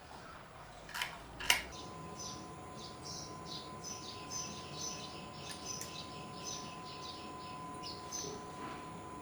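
Two sharp knocks, then a bird chirping in a quick series of short, high, falling notes for several seconds, over a faint steady tone.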